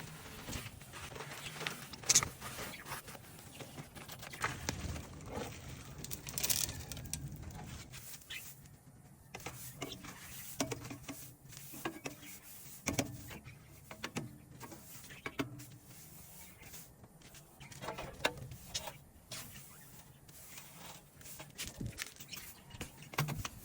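Irregular scraping, rubbing and clicking from cleaning a bird cage, with a couple of sharper knocks about two and six seconds in.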